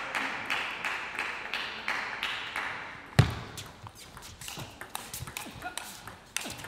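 Table tennis ball clicking off the bats and the table during a rally, after a run of light, quick taps. One loud sharp thump about three seconds in.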